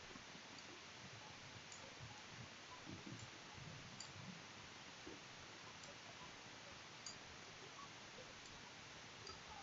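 Near silence: faint steady room hiss with a few scattered faint clicks of a computer mouse and keyboard as code is edited.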